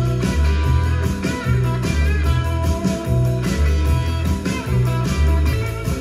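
Guitar-led rock music with a heavy bass line, played back through a portable Bluetooth speaker and picked up by the camera's microphone in a speaker sound test.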